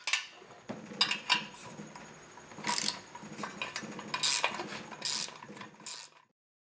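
Metal tools and chainsaw parts clinking and scraping during disassembly: a few sharp clicks, then several short scraping rasps.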